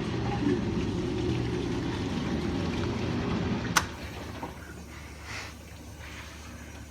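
Whirlpool dishwasher filling with water: a steady rush of water inside the tub. About four seconds in there is a sharp click and the rushing drops to a fainter hum.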